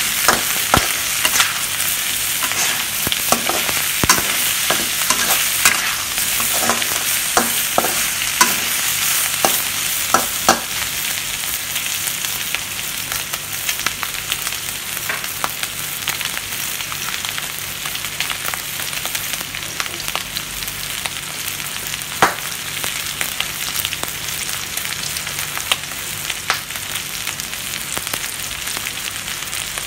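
Pork belly and sliced red onions sizzling in a wok, with a metal spatula scraping and clacking against the pan through roughly the first ten seconds. After that the steady sizzle goes on with only an occasional click.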